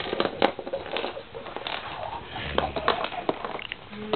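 A series of light clicks and taps of hard plastic toy lion figures being handled and set down on the floor.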